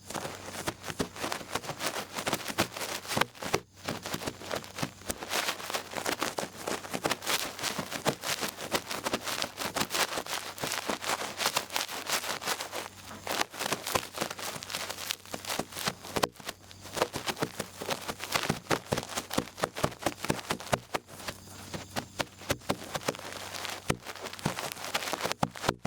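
Cotton swab twirling and rubbing in an ear close to the microphone, a dense crackling scratch that pauses briefly a few times.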